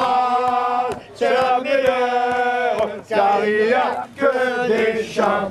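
Male voices singing a chant in four long held phrases, each a second or two long, with short breaks between them.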